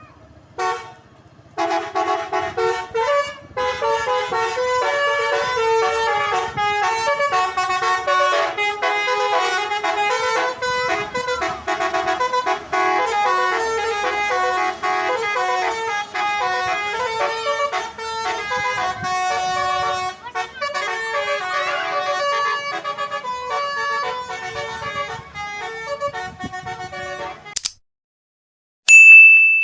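Bus telolet horn, a set of multi-note air horns, playing a long rapid tune of shifting notes. It stops shortly before the end and is followed by a loud, high, steady beep.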